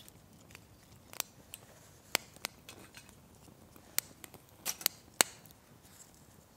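Small wood fire crackling: a dozen or so sharp, irregular pops and snaps, the loudest clustered between about two and five and a half seconds in.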